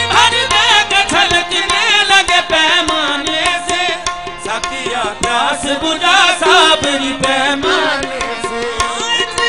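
Qawwali music: tabla keeping a steady beat under a melody that moves in quick, wavering, ornamented runs.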